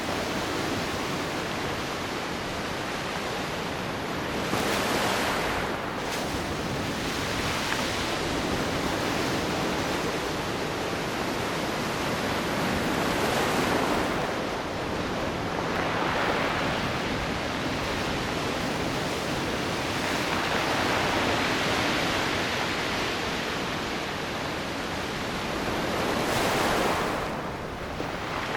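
Ocean surf breaking on the shore: a steady rushing hiss that swells several times at uneven intervals as waves break and wash in.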